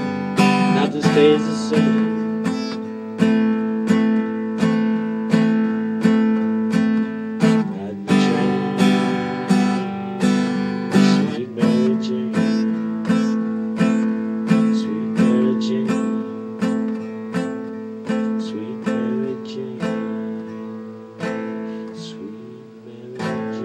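Acoustic guitar strummed in a steady rhythm, about one and a half strums a second, growing gradually quieter as the song's instrumental ending fades out.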